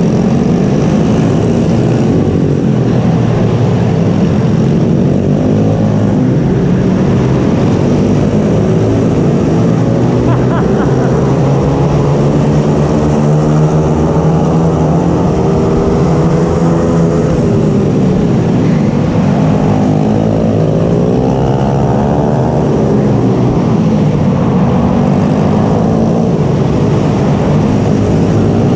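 Mini bike engine running hard in a race, its pitch climbing and dropping again and again as the throttle opens and closes, with a long drop about seventeen seconds in followed by a steep climb.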